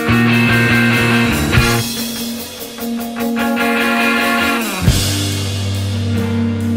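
Background music: a rock track with electric guitar and drums.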